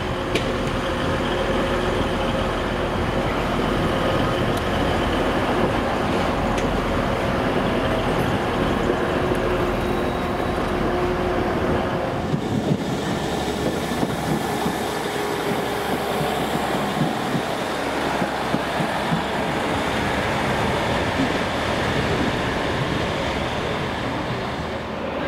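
TransPennine Express Class 185 diesel multiple unit running past with a steady diesel engine note. About halfway through the sound changes to a broader rail rumble with scattered clicks as a Northern Class 150 diesel unit approaches.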